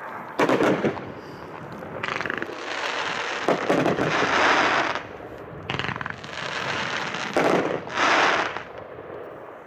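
The consumer (1.4G) firework Tonka firing: a series of sharp shots, several followed by a second or so of dense, rushing noise as the effects break overhead.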